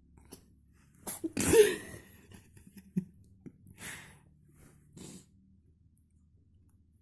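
A cat sneezing: a short intake of breath, then one loud, sharp sneeze about a second and a half in. Two softer bursts follow around four and five seconds in.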